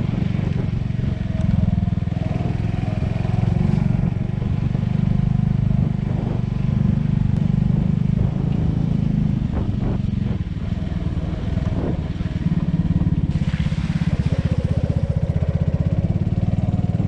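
A 125 cc pit bike's single-cylinder engine running steadily as the bike rides along, its note rising and easing a little with the throttle. There is a short hissing rush about thirteen seconds in.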